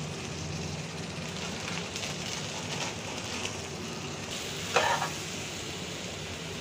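Jackfruit sabzi with onions sizzling in a metal pan, with a spoon stirring and scraping through it. A short, sharp pitched sound stands out about five seconds in.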